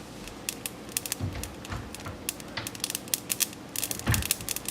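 Mustard, fennel, cardamom and caraway seeds dry-roasting in a hot pan, crackling with scattered, irregular sharp clicks as the mustard seeds begin to pop, the sign that the roast is nearly done. A few soft low thuds come from the pan.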